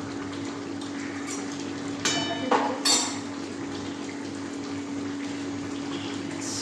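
A steady hiss with a constant low hum, broken about two to three seconds in by a few clinks of steel kitchen utensils, the first with a brief metallic ring.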